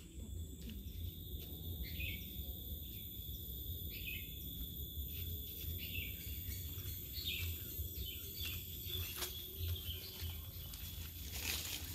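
Rainforest swamp ambience: a steady high insect drone with short bird chirps about once a second, over a low steady rumble.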